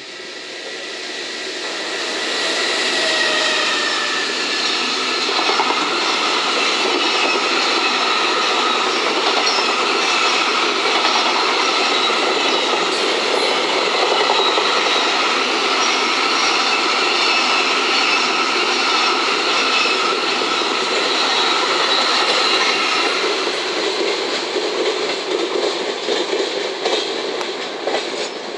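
A freight train of container wagons hauled by an EF210 electric locomotive passes at high speed. The noise builds over the first few seconds, holds as a loud, steady rumble and rattle of wheels on rail, then fades near the end as the last wagons go by. A thin whine rides over it in the first few seconds.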